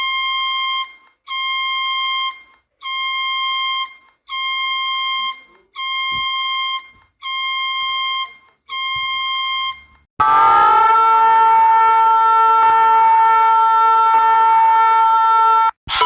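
Emergency alert system tones: a series of about seven loud electronic beeps, one every second and a half, then a loud steady two-tone attention signal that starts about two-thirds of the way in and cuts off abruptly just before the end.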